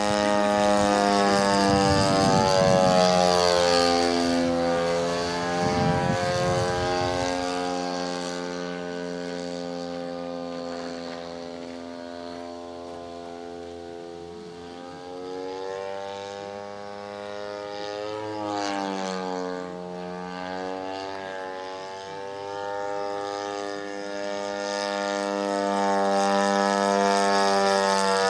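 Radio-controlled model airplane powered by a two-stroke string-trimmer engine, flying. The engine's note slides up and down in pitch as the plane passes. It grows quieter through the middle and louder again near the end.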